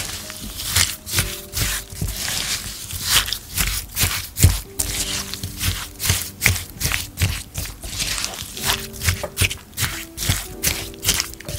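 Wooden spatula stirring chopped strawberries and sugar in a glass bowl: a quick run of wet scrapes and clicks, several a second, over soft background music.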